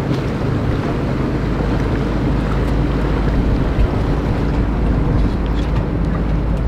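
Small motor tender's inboard engine running at low speed while manoeuvring alongside a pontoon: a steady low hum, with wind on the microphone.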